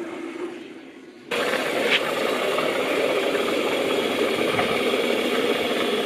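Water from an outdoor tap running into a galvanised metal watering can: a steady rushing hiss that starts abruptly about a second in.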